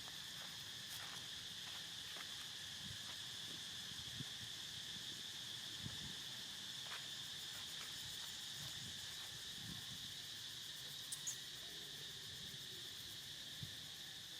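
Steady insect chorus, a continuous high drone, with faint scattered knocks and rustles and a brief high chirp near the end.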